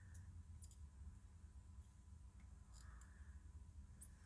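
Near silence: a steady low room hum with a few faint, brief high ticks scattered through it.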